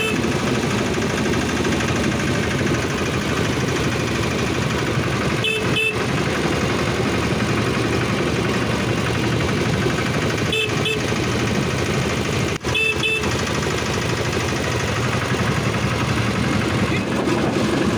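Railway motor trolley running along the track with a steady loud noise, its horn giving short double toots three times, about 6, 11 and 13 seconds in, to warn people walking on the track.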